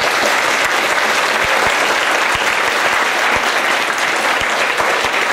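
Audience of school students applauding, steady clapping.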